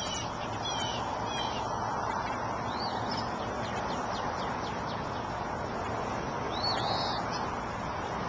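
Songbirds chirping: short downward-sliding calls repeated now and then, and one longer arched call about seven seconds in, over a steady even outdoor noise.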